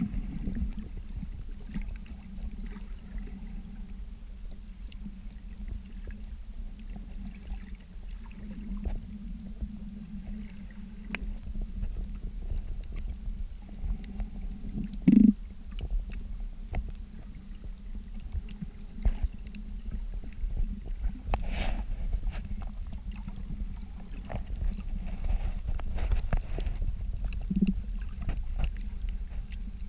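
Muffled underwater sound picked up by a camera in a waterproof housing: a steady low rumble of water moving past the camera, with scattered small clicks and a louder short knock about halfway through.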